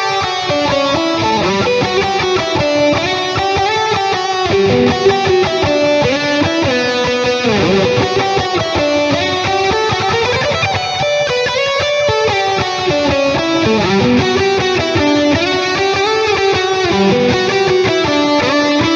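Strandberg Boden 7 True Temperament seven-string electric guitar with Fishman Fluence pickups playing a lead line through a driven amp tone, a run of single notes moving up and down with a few slides.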